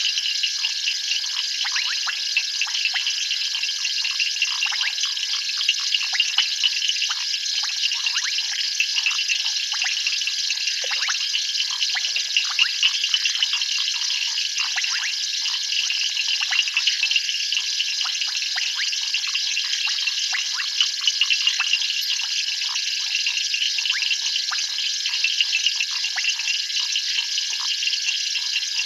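Dense night chorus of frogs and insects: a steady high-pitched shrill ringing, with many short, quick chirps packed thickly over it and never pausing.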